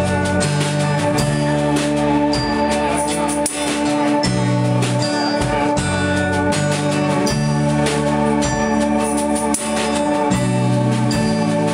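Live rock band playing an instrumental passage: strummed acoustic guitar, electric bass and drum kit, with a held, steady organ-like chord from an electric guitar run through effects pedals. The bass moves to a new note about every second.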